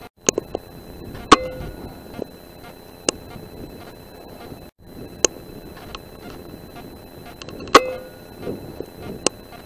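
Pre-charged pneumatic .177 Air Arms S510 air rifle firing twice, about a second in and near the end: each a sharp crack with a brief ring after it. Fainter clicks and knocks fall between the shots.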